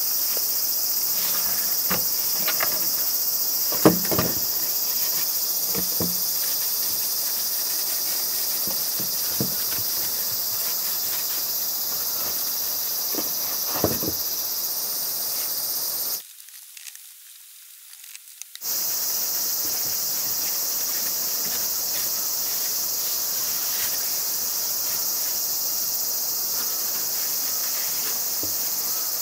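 A loud, steady chorus of insects, with a few light knocks and short scrapes from a wooden plank tabletop being handled and rubbed by hand. The insect sound cuts out for about two seconds a little past the middle.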